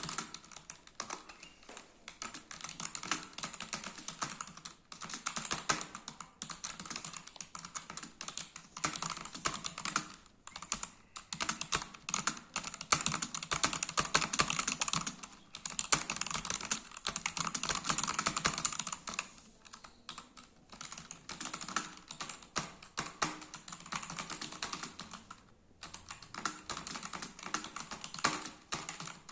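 Fast, continuous typing on a budget Zebronics membrane keyboard: rapid irregular key clicks with short pauses now and then.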